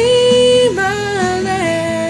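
Woman singing a gospel song, holding a long note that then steps down in pitch twice.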